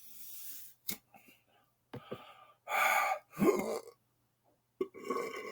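A man gasping and gulping in air to work up a belch: a breathy intake at the start, then two short, loud throaty sounds a little under halfway through and more gulping near the end.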